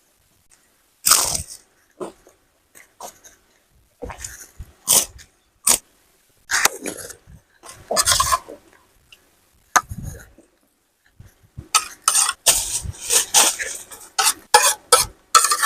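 Close-miked mukbang eating sounds of nasi rawon with raw cabbage: irregular short, loud mouth noises of chewing, with quiet gaps between them and a dense run of them in the last few seconds.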